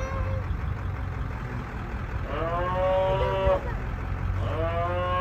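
Cattle bawling: two long calls, the first about two seconds in and the second starting near the end. Each call rises at the start and then holds steady. A steady low rumble of a vehicle driving on the road runs underneath.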